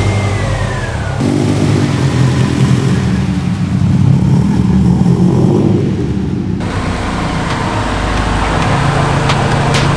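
Subaru WRX STI's turbocharged flat-four engine running just after being started, its revs rising and falling a few times.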